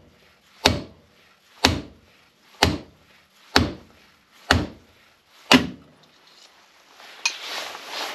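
Hammer blows on a socket-and-extension drift, driving the bottom front wheel bearing out of a motorcycle hub: six sharp metal-on-metal strikes, about one a second. Near the end come scraping and rubbing sounds.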